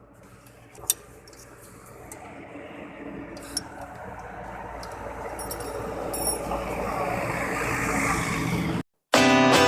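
Bajaj Pulsar 220F single-cylinder motorcycle with a newly fitted exhaust running and growing steadily louder for most of the time. The sound cuts off suddenly, and guitar music starts just before the end.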